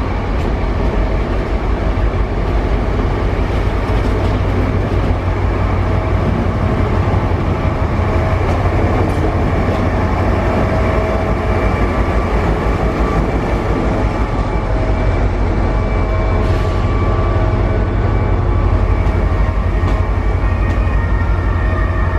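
SNCF CC 72100 diesel-electric locomotive running light past the platform, its engine giving a steady, deep, low drone throughout.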